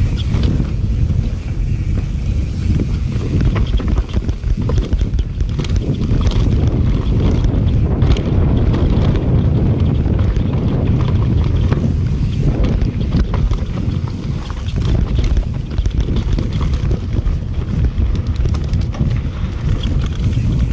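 Mountain bike riding fast down a dry dirt trail, heard through a GoPro's microphone. Wind buffets the microphone in a steady low rumble, and tyres and frame add frequent quick clicks and rattles over the rough ground.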